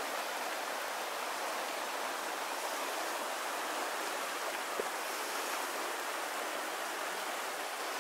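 Shallow river water running over a gravel and pebble bed: a steady, even rushing. One faint click about five seconds in.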